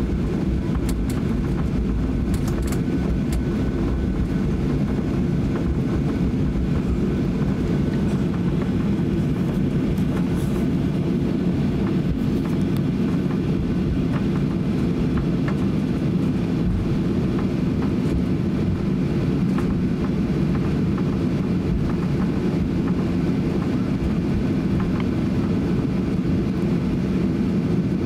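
Jet airliner cabin noise while taxiing: a steady low hum and rumble from the engines and the rolling airframe.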